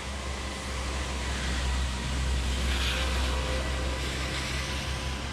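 Wind buffeting the microphone: a low, unsteady rumble over a steady hiss that swells about three seconds in.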